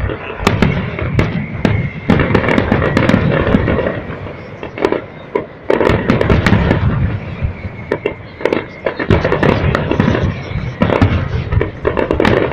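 Fireworks display: a dense, unbroken run of sharp bangs and crackles over a continuous low rumble of explosions.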